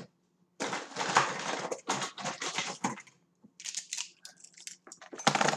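Rustling, scraping handling noise close to the microphone: a dense stretch of it, then shorter scattered bursts.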